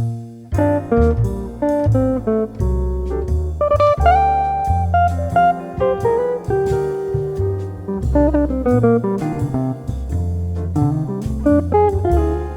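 Background jazz music: plucked guitar melody over a bass line and light drums.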